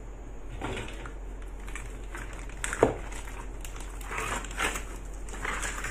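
Clear plastic bag crinkling and stiff dried shark fins rustling and scraping against each other as they are lifted out by hand, in irregular bursts with one sharp knock about halfway through.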